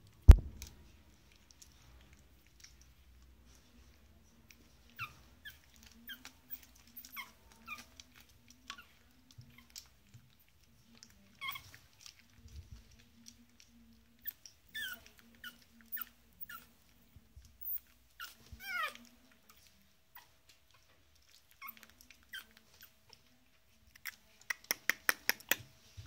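Pug puppy, about a month old, giving many short, high, squeaky whimpers while feeding from a baby bottle. There is a sharp knock at the start and a quick run of sharp clicks near the end.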